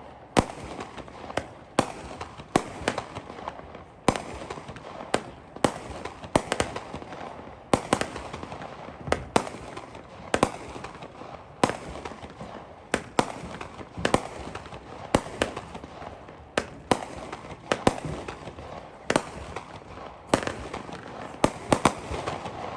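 A 200-gram Sky Bacon Nishiki Forest consumer fireworks cake firing shot after shot: sharp shell breaks come roughly one to two a second over a continuous noise, with a quicker cluster of reports near the end.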